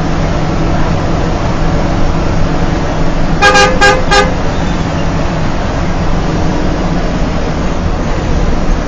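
A bus's engine and road noise heard from inside the cab, running steadily, with three quick toots of the bus's horn about three and a half seconds in.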